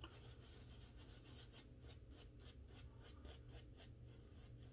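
Badger-hair shaving brush working lather over the face, faint soft brushing strokes at about three a second.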